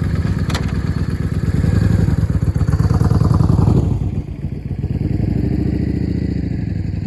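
Yamaha Drag Star's V-twin engine running with a steady low pulse. It swells in a short rev between about two and four seconds in, then drops back.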